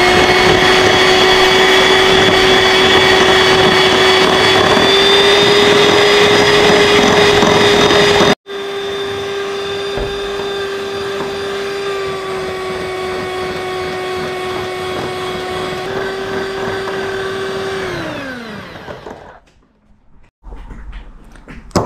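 Electric hand mixer whipping instant coffee to a cream: a steady, high motor whine. It breaks off sharply about eight seconds in and picks up again quieter, then winds down with a falling pitch and stops near the end.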